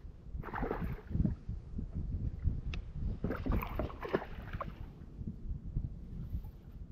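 Small waves slapping and lapping against a kayak hull as it drifts, over a low, unsteady wind rumble. There are two louder bouts of light knocks and rustling, one about half a second in and a longer one around three to four and a half seconds in.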